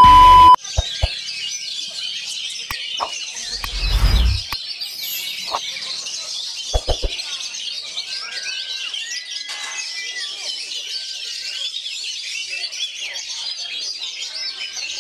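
Many caged oriental magpie-robins (kacer) singing at once, a dense, unbroken chorus of varied whistles and chatter. It opens with a brief steady electronic beep that cuts off, and a few sharp clicks and a short low thump come in the first seven seconds.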